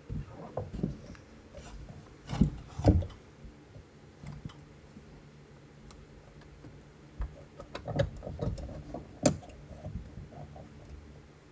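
Knocks, clicks and rubbing as a metal sun-visor clamp is fitted and adjusted on a padded roll-cage bar, with two sharper knocks between two and three seconds in and a few more around eight to nine seconds.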